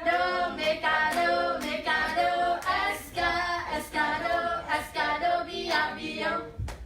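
A voice singing unaccompanied in a run of short phrases, stopping just before the end.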